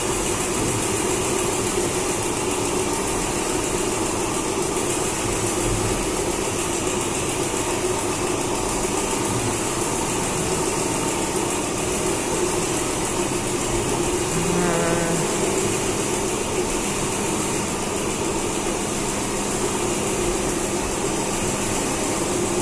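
Reciprocating air compressor running steadily, pumping air for the CNC machines: a continuous mechanical drone with a steady hum.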